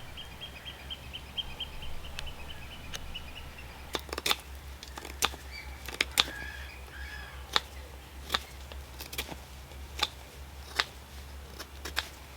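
A small bird sings a quick trill of evenly spaced, slightly falling notes, with a few more short calls a few seconds later. Sharp clicks or snaps come roughly once a second over a steady low hum.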